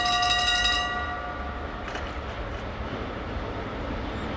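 Horn of a Siemens EuroSprinter (BR189) electric freight locomotive sounding a held chord that fades out about a second in, followed by the steady low rumble of the approaching freight train.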